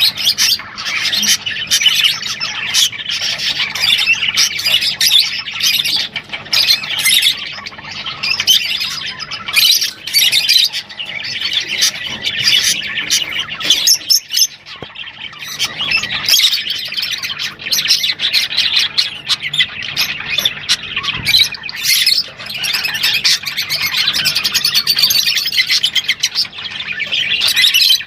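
A flock of lovebirds chattering and squawking in shrill, rapid, overlapping calls without pause.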